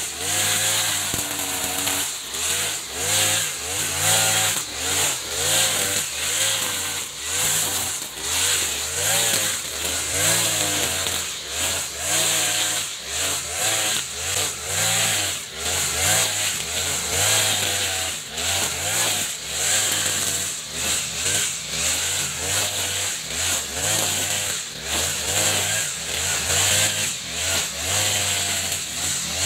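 Echo RM435 40cc two-stroke brush cutter with a nylon line head, cutting thick grass at high throttle. The engine's pitch wavers up and down about once a second as the line is swept through the dense grass, with a whirring hiss from the spinning line on top.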